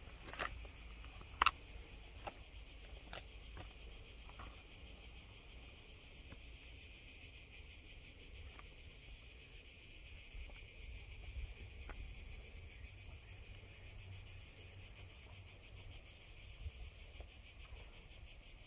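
Steady, shrill chorus of summer insects chirring on a hot scrubby hillside, with a few sharp crunches of footsteps on loose stones in the first seconds, the loudest about a second and a half in.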